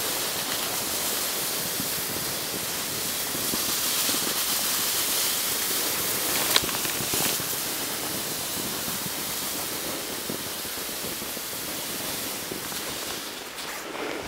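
Skis hissing steadily as they slide over snow during a ski-touring descent, with one sharp click a little past halfway through; the hiss eases off near the end.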